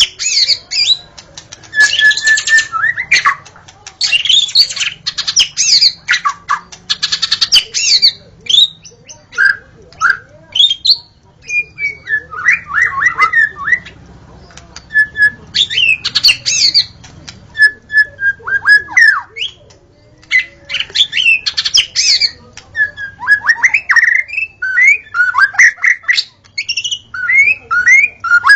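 White-rumped shama singing loudly and continuously. Its phrases mix rapid harsh chattering runs with clear whistled notes and sliding calls, broken by short pauses.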